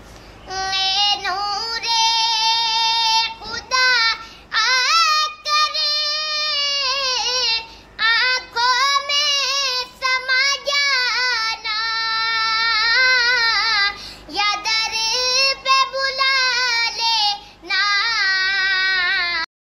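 A child singing solo, a melody in phrases of a second or two with wavering held notes and short breaks between them; it cuts off abruptly near the end.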